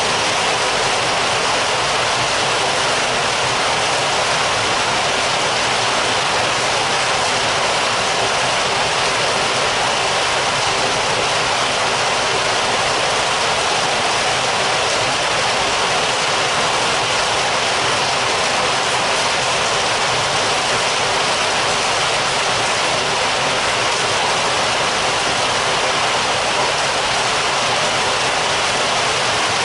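Heavy rain heard from indoors: a steady, dense downpour with no let-up.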